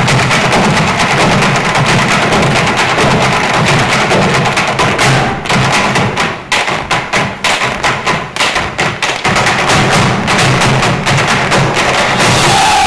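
Irish hard-shoe dancers' feet beating out fast unison rhythms on a stage, making the thunder with their taps alone. About a third of the way in the rattle breaks into separate sharp stamps, then the dense tapping resumes.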